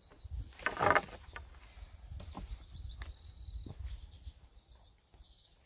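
A bundle of cut wooden poles dropped onto grassy ground, clattering together about a second in, then a few lighter knocks as the poles settle. Birds chirp faintly.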